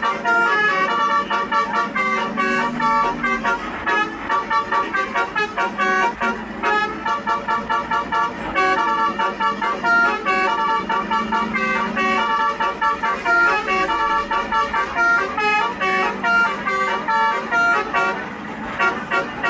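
Basuri telolet multi-tone bus horn playing a melody: a long, rapid run of short, bright horn notes hopping up and down in pitch, several a second.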